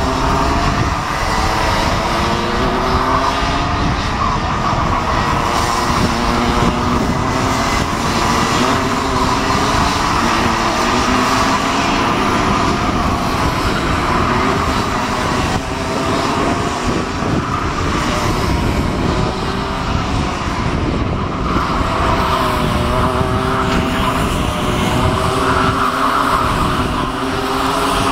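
Several Minimax two-stroke kart engines buzzing as the karts lap the track, their pitch rising and falling as drivers lift off and accelerate through the corners.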